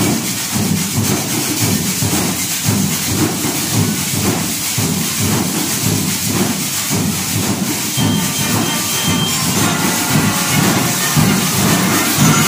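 School marching band percussion: drums keeping a steady pulsing beat while metal tube shakers hiss along in rhythm. Short high ringing notes join about eight seconds in.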